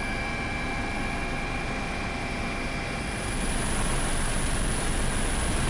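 Steady engine noise like an aircraft or helicopter in flight, with faint steady tones in it. About three seconds in it grows a little louder and a faint high whine joins.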